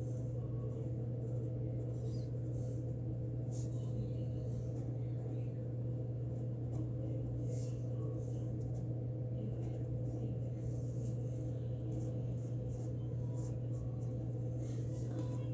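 A steady low hum, with faint short scratches of colouring strokes on paper now and then.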